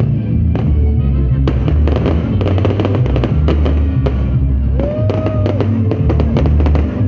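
Fireworks going off in rapid crackles and bangs from about a second and a half in, over loud music with a heavy bass line.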